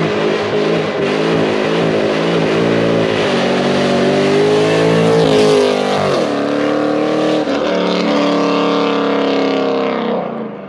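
A car with a loud aftermarket headers-and-exhaust setup makes a hard full-throttle drive-by, engine note climbing as it approaches. It is loudest about six seconds in, where the pitch drops as it passes. It then winds up again through the gears as it pulls away and fades near the end.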